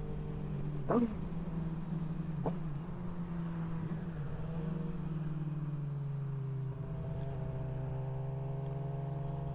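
Suzuki GSX-R sportbike's inline-four engine, fitted with an aftermarket pipe, running steadily at highway speed under wind rush. The engine note drops slightly about halfway through and then holds steady.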